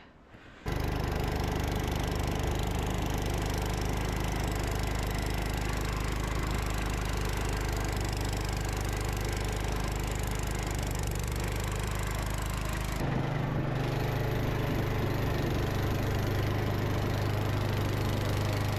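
Gravely C10 walk-behind tractor's Kohler single-cylinder engine running steadily. It comes in suddenly just after the start, and about two-thirds through its note shifts and grows a little stronger.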